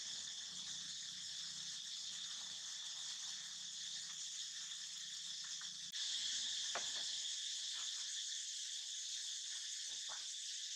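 Steady high-pitched chirring of an insect chorus. It steps up a little in level about six seconds in, with a few faint soft clicks after that.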